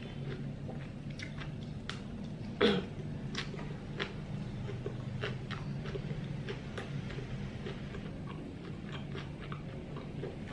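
Chewing and biting into Vietnamese fresh spring rolls (rice-paper rolls with shrimp and pork), heard as scattered short mouth clicks and smacks. One much louder, sharper mouth sound comes about two and a half seconds in.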